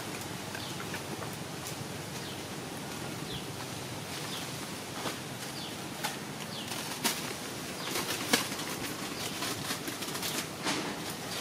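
Outdoor ambience: a steady hiss with scattered sharp clicks and rustles, which grow busier from about five seconds in, and a few short high chirps.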